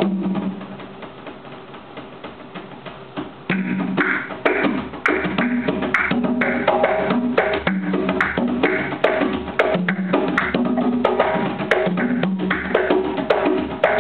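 A set of tall pegged hand drums struck by hand in a fast, steady rhythmic pattern. The playing is soft for the first few seconds, then much louder from about three and a half seconds in.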